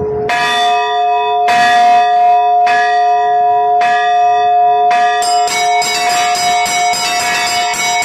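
Orthodox church bells rung by a bell ringer: five even strokes about a second apart, each left ringing, then from about five seconds in the smaller bells join in a rapid, busy peal over the ringing larger bells.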